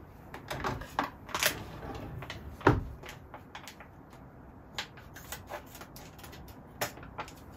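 Kitchen handling sounds: scattered light clicks, taps and rustles as a plastic soup-stock pouch and a utensil are handled, with one sharper knock a little under three seconds in.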